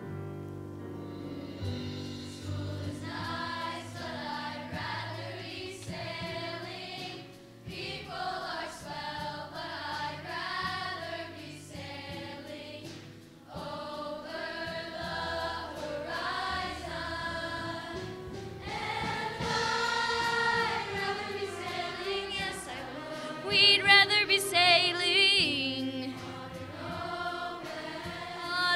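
Middle school choir singing a song together, growing louder in the last third.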